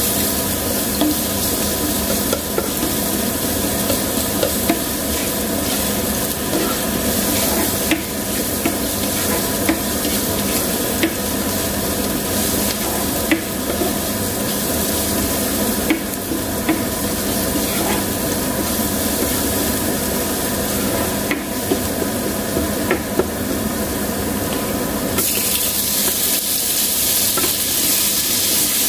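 Chopped onion and garlic sizzling in oil in a nonstick frying pan, stirred with a spatula that clicks and scrapes against the pan now and then. Near the end the sizzle turns hissier as chopped tomatoes go into the pan.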